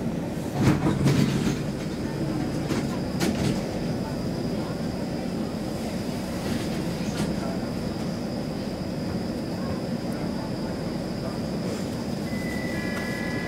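Inside a Stockholm Metro C20 carriage standing at a platform: a steady rumbling hum with a faint high whine, and a few sharp clunks in the first few seconds. Near the end a steady electronic tone of several pitches starts.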